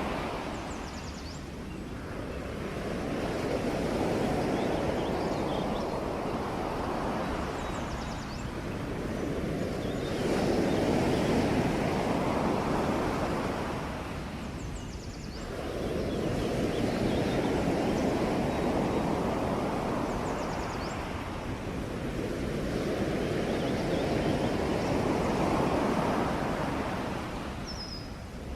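Ocean waves breaking and washing on the shore in slow surges, about four of them, each swelling up and easing away.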